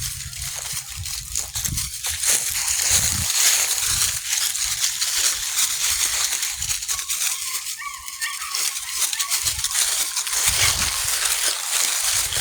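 Dry leaves and ground litter rustling and crackling as puppies scuffle and play, with uneven low thumps and a brief faint squeak about eight seconds in.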